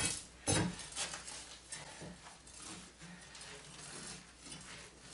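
Steel pry bar working at broken concrete slab pieces in a floor trench: one sharper knock about half a second in, then faint scrapes and light clinks of loose concrete chunks.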